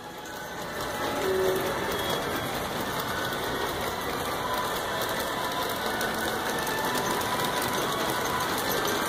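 LGB large-scale model trains running on track: a steady, dense mechanical clatter of geared motors and wheels rolling over the rails, growing louder over the first second or so.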